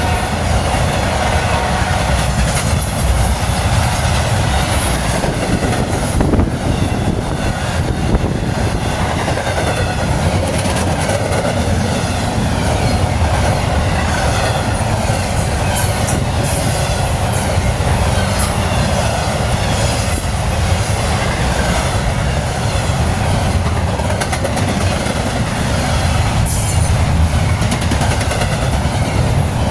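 Norfolk Southern freight train rolling past at close range: a steady loud rumble of cars on the rails, wheels clacking over joints, with faint wheel squeal now and then.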